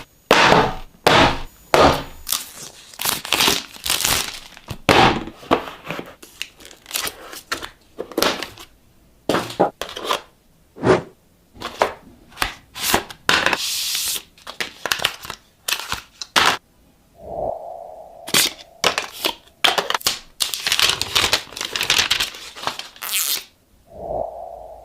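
Phone packaging being unboxed: a rapid run of sharp clicks, knocks and cracks from the box and its parts, with plastic wrap and film tearing and crinkling in a few longer hissy stretches.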